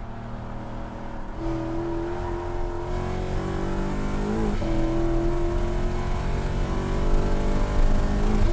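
Lexus IS F's 5.0-litre V8 at full throttle, heard inside the cabin, revving up through the gears. The pitch climbs, dips at an upshift about halfway through, then climbs again, getting louder as the car gathers speed.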